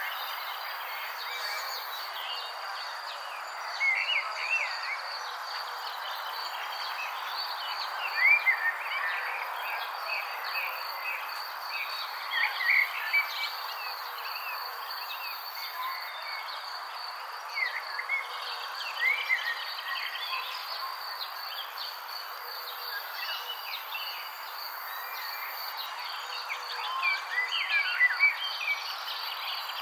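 Crickets trilling steadily over a soft hiss, with short bird chirps coming every few seconds.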